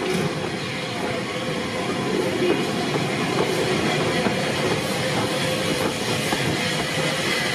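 Bulleid Light Pacific steam locomotive 34092 City of Wells and its train arriving past at close range: a steady running noise of wheels on rail with occasional faint clicks.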